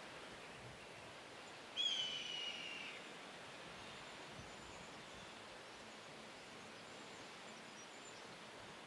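Faint steady outdoor hiss, with a single clear bird call about two seconds in: one whistled note held for about a second, falling slightly as it fades.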